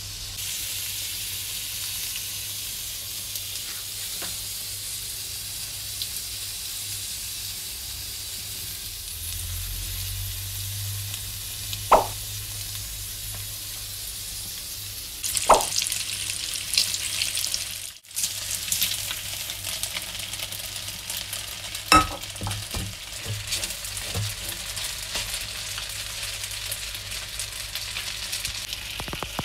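Spaghetti boiling in a stainless steel pot as it is stirred, with sharp knocks of the utensil or jug against the pot. From about halfway, a louder sizzle of spaghetti and bacon frying in the pot, with scattered clinks.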